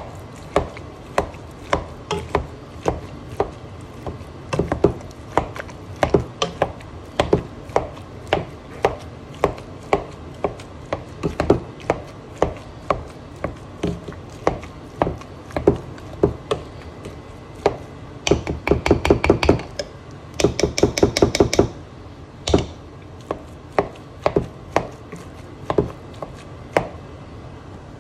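Potato masher pounding boiled red potatoes in a metal pot, each stroke a dull knock at about two a second, with two short runs of fast strokes about two-thirds of the way in.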